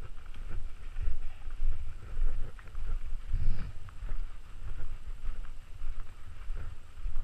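Footsteps crunching on a packed snow trail at a walking pace, with uneven low rumbling on the microphone.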